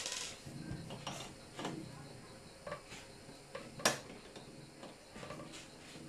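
A screwdriver working inside the print mechanism of an Epson TM-U220 dot-matrix receipt printer: scattered small plastic and metal clicks and scrapes as a part is pried loose. There is a scrape right at the start and one sharper click about four seconds in.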